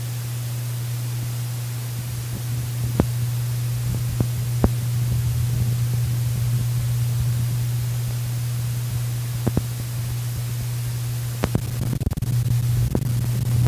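Steady low hum under an even hiss, typical of recording noise, with a few sharp clicks scattered through it; no music is playing.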